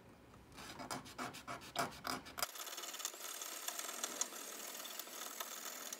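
Hand filing of a small metal spacer: quick short rasping strokes, then a denser, continuous scraping from about halfway. The spacer is being filed down so the C-hub turns freely without clamping.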